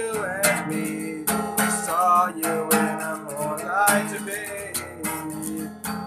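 Acoustic guitar strummed in a steady rhythm, with a voice singing a wavering line over it.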